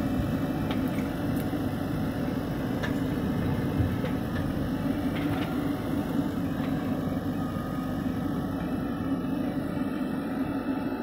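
Diesel engine of a JCB 3DX backhoe loader running steadily as its backhoe arm digs, with a few faint sharp clicks in the first half.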